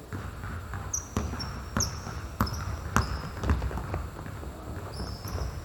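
Basketball bouncing repeatedly on a court floor, irregular thumps about every half second, with short high squeaks in between.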